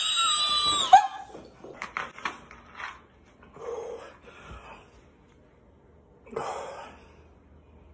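A loud, high-pitched strained vocal sound in the first second, then a few short clicks and soft gasping breaths from a person gulping soda fast while trying not to burp.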